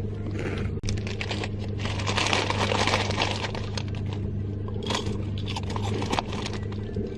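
Screwdriver scraping and prying in the back of a VW Lupo steering wheel to release the airbag's retaining clips, with irregular rustling and a few clicks, over a steady low hum.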